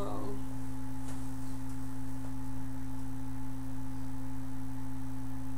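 Steady electrical hum made of a few constant low and middle tones, with nothing else rising above it.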